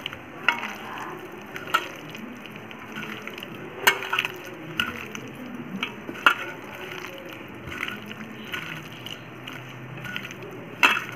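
A hand squishing raw prawns through a wet masala marinade in a stainless steel bowl, with a sharp clink against the steel every second or two.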